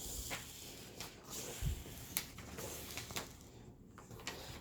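Faint rustling and handling noises from a rolled diamond-painting canvas being unrolled and looked over on a table, with scattered small clicks and a soft low thump about one and a half seconds in.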